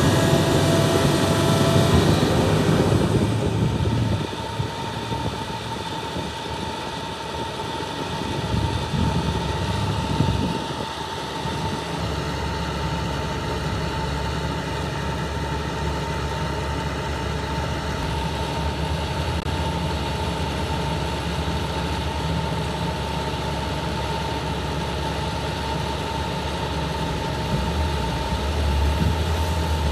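Hitachi ZAXIS 350H excavator's diesel engine running, louder and rougher for the first few seconds, then a steady low hum with a thin steady whine above it. It grows a little louder again near the end.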